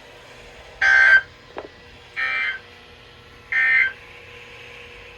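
Three short bursts of warbling EAS SAME data tones, about a second and a half apart, received off NOAA Weather Radio: the end-of-message signal that closes an alert. A faint steady tone hums underneath.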